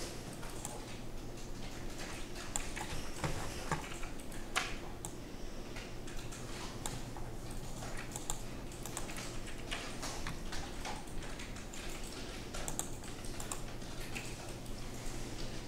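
Irregular clicking of a computer keyboard and mouse over a steady low hum.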